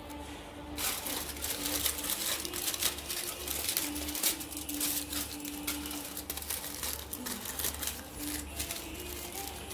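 Aluminium foil being crumpled and scrunched by hand: a dense crackling that starts about a second in and goes on, loudest in the middle, over a steady low hum.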